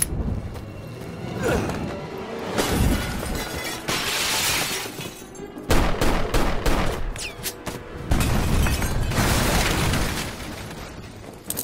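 Dramatic film score under a string of loud crashes and impacts from a fistfight, in long noisy stretches with a burst of sharp hits in the middle.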